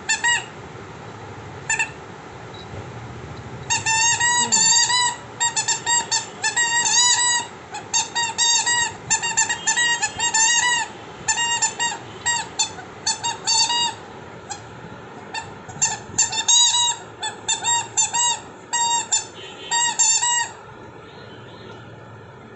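Rubber squeaky dog toy squeaking as a puppy chews it. A couple of single squeaks come near the start, then quick, almost continuous runs of squeaks from about four seconds in, stopping shortly before the end.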